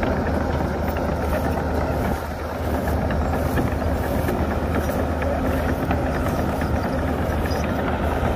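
Heavy construction machine's diesel engine running steadily under work, with a brief dip in level about two seconds in.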